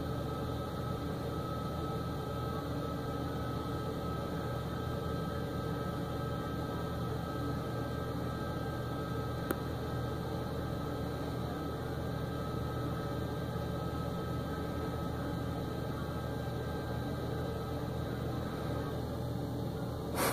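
Flatbed tow truck running steadily while its winch pulls a car up the tilted bed: an even mechanical drone with a constant hum and a faint steady whine, a faint click about halfway through and a short knock at the end.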